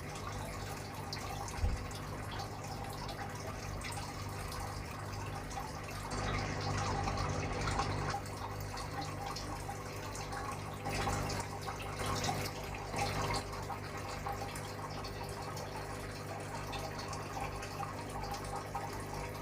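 Aquarium water trickling and dripping steadily, as from a filter outflow returning water to the tank, over a steady low hum.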